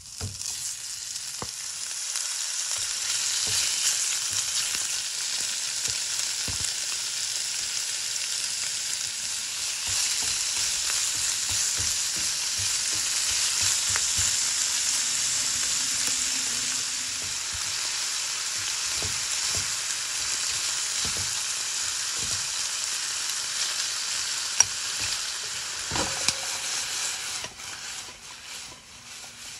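Sliced pork sizzling in garlic-infused oil in a frying pan as it is stir-fried. The sizzle starts sharply as the first slices go in, with light utensil taps and scrapes through it, and dies down briefly near the end.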